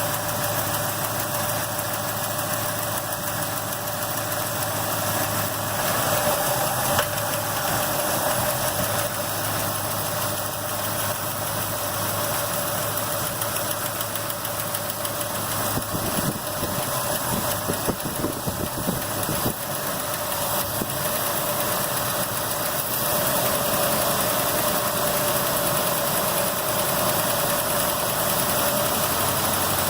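Car engine idling with a fast, steady ticking from the valvetrain, which the owner takes for lifter noise.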